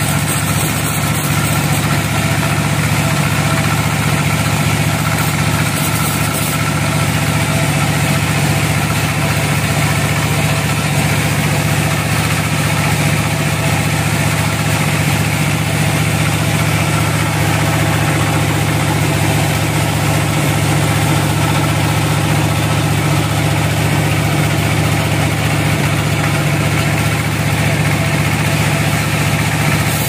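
Vertical band sawmill running steadily as its band blade saws through an old teak log: a loud, even mechanical drone that holds constant throughout.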